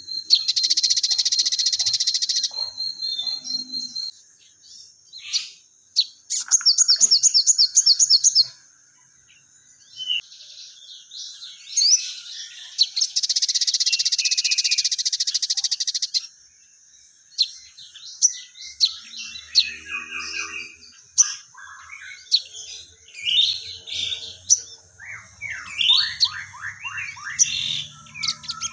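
Sogon songbird singing loudly and busily: a couple of seconds of harsh, buzzy chattering at the start and again around the middle, a quick run of repeated notes, and many short sweeping chirps and whistles toward the end.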